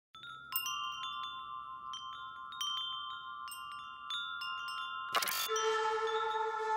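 Small metal temple wind bells, swung by their heart-shaped sails, ringing with light, irregular strikes whose tones overlap and ring on. About five seconds in, a brief dense rush of sound gives way to steady held tones.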